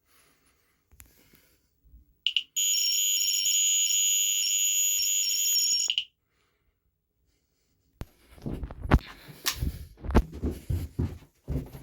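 Smoke alarm sounding: a short chirp, then one steady high-pitched tone for about three and a half seconds that cuts off abruptly. A couple of seconds later come irregular knocks and rustling, louder than the alarm.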